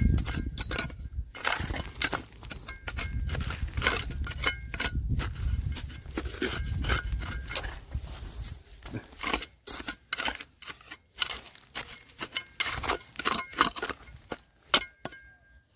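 Stones and gravel clicking and scraping as a riverbed is dug through, a dense run of sharp knocks with a low rumble under the first half.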